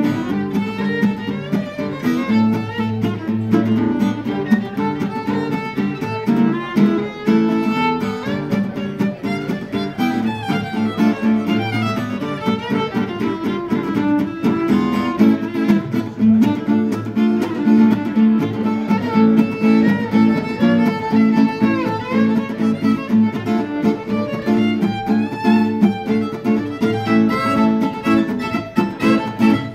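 Violin playing the melody of a tune over a strummed acoustic guitar accompaniment.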